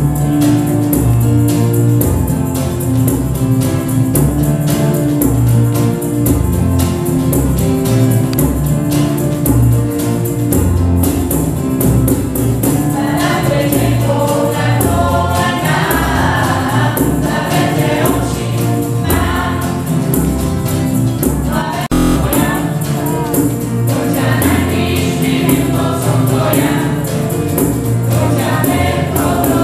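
A small church band plays a Christian worship song on electric guitar, semi-acoustic guitar, keyboard and tambourine. Voices come in singing a little before halfway through, pause briefly, then sing on.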